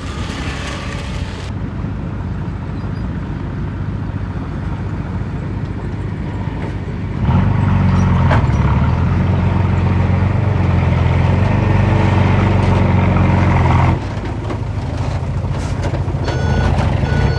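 Heavy diesel engine of earthmoving machinery running, louder and deeper for several seconds in the middle as it works under load, then easing back. A few short evenly spaced beeps near the end, like a reversing alarm.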